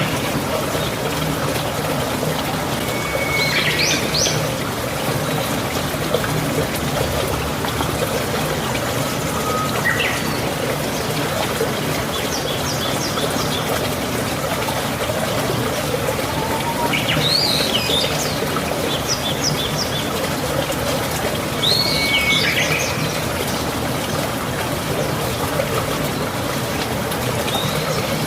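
Steady running water with songbirds calling over it every few seconds: short whistled phrases that sweep up and down, and quick runs of repeated chirps.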